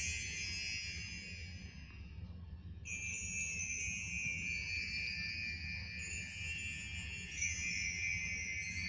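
Bright twinkling chime sound effect. High ringing tones fade out about two seconds in, and a new run of chimes starts about three seconds in, over a steady low hum.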